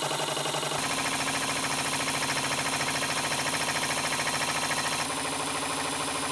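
Small 90° V-type Stirling hot-air engine (GT03) running fast and steadily, with a rapid even rhythm, turning its belt-driven generator. The tone shifts abruptly about a second in and again near the end.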